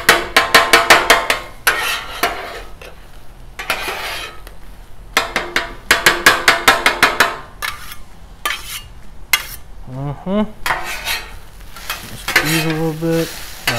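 Two metal spatulas chopping and scraping on a steel flat-top griddle, breaking up scrambled eggs and chorizo in quick bursts of rapid clacks, with sizzling between them. Near the end the spatulas scrape under hash browns to turn them.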